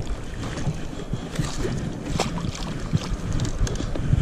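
Hooked bass splashing at the water's surface as it is brought to the boat, with irregular knocks and clicks over wind noise on the microphone.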